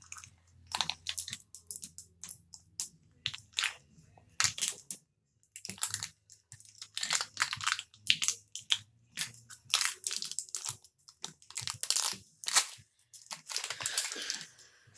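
Mash'ems toy packaging being handled and opened: a long run of irregular plastic crinkling and crackling.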